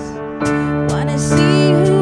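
Slow, tender worship music: a woman singing over sustained chords played on a keyboard. A new chord comes in about half a second in.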